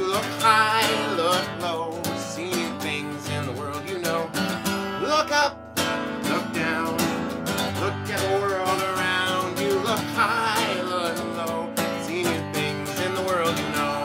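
Acoustic guitar strummed in a steady rhythm, with a man singing a simple song over it.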